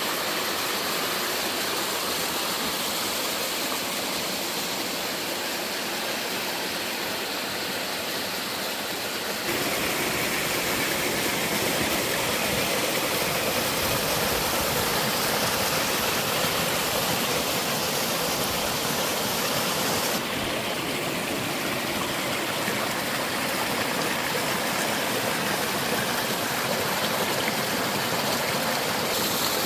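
Waterfall and mountain-stream water rushing steadily. The sound changes suddenly about a third of the way in, becoming louder and fuller, and shifts again about two-thirds of the way in.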